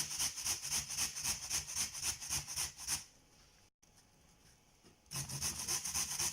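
Turnip being grated on the fine side of a hand grater: rapid rasping strokes, about four to five a second. The strokes stop about three seconds in and start again about two seconds later.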